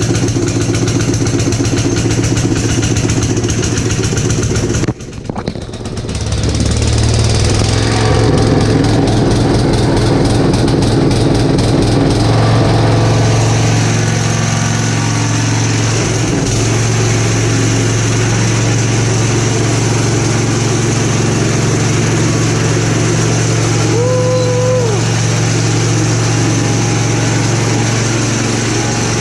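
Gravely Commercial 12 tractor's engine running steadily just after a cold start on full choke. About five seconds in it falters briefly, then picks back up and runs on.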